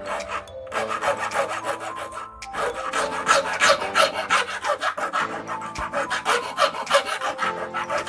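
A saw file rasping in quick repeated back-and-forth strokes, about three a second, with a short pause about two seconds in.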